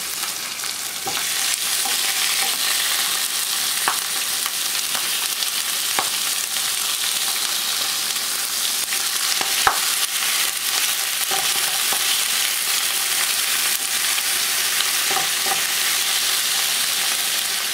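Turkey carcass pieces sizzling steadily as they brown in oil in a nonstick skillet, with a few sharp clicks as tongs move the pieces against the pan.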